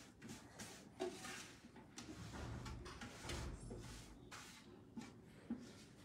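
Milk dribbling from a tilted aluminium milk can into a plastic bucket, faint, with a few light knocks from handling the can and bucket.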